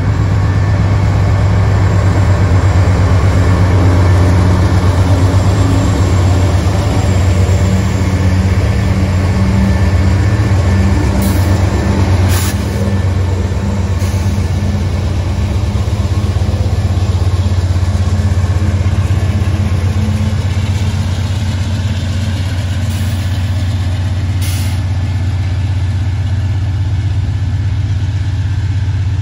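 Diesel locomotive engine running with a steady low drone, a few sharp clicks sounding about halfway through.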